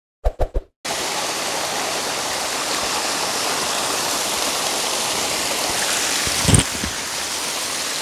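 Three quick clicks of a sound effect, then, from about a second in, a small waterfall cascading over rocks: a steady rush of water. A brief dull thump sounds near the end.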